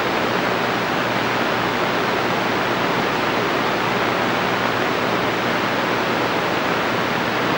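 Steady static hiss from a Dynamike CB radio's speaker in receive mode with the squelch open and no station transmitting, at an even level with a faint low hum underneath.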